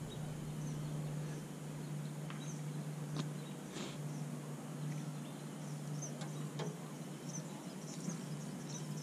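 Quiet evening lake ambience: scattered short, high chirps of small creatures over a steady low hum, with a few faint clicks.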